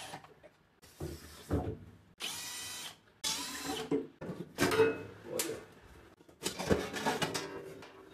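Cordless drill-driver backing out the screws of a microwave oven's outer cover, whirring in about five short bursts. A few sharp knocks come as the sheet-metal cover is handled.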